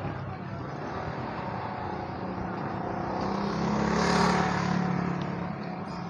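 A motor vehicle passing close by on a street: its engine hum grows to its loudest about four seconds in, then fades, over steady traffic noise.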